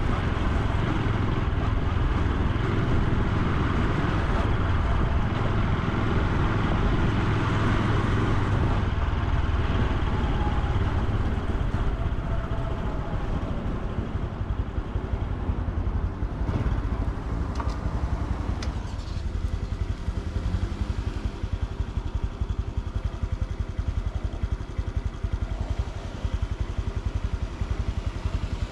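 Honda Super Cub C125's 125 cc single-cylinder four-stroke engine and exhaust running while riding, with wind and road noise. Steady for the first half, then quieter and more uneven from about halfway through.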